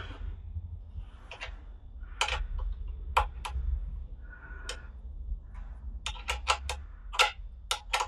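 Sharp small clicks and taps from hand work on a motorcycle's front turn signal fitting, scattered at first and then a quick run of them near the end, over a steady low hum.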